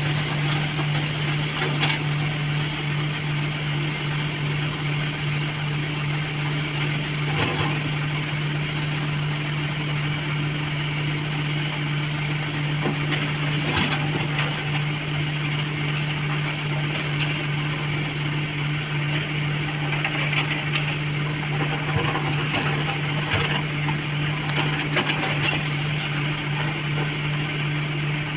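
Excavator's diesel engine running steadily under load, with a constant low hum and a few short knocks scattered through.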